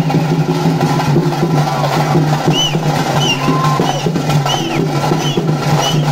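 Drums beaten hard and fast for a pili vesha tiger dance, in the style of tase drumming. From about halfway, short shrill rising-and-falling whistles repeat about every two-thirds of a second.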